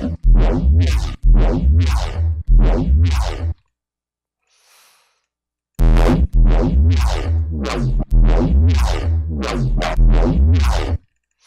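Electronic bass from the Harmor synthesizer, being resampled: a run of short, heavy bass notes, each opening bright and quickly darkening. About three and a half seconds in the notes stop for roughly two seconds, with only a faint hiss, then the run starts again.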